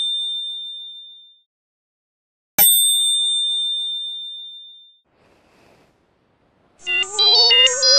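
A bright bell ding rings out and fades, and a second ding strikes about two and a half seconds in and rings out over a couple of seconds: edited-in sound effects. About a second before the end a short synthesizer jingle starts, a rising tone under quick high notes.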